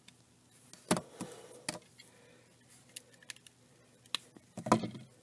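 Hard plastic toy robot parts clicking and clacking as they are handled and snapped together: a scatter of sharp clicks, busiest near the end.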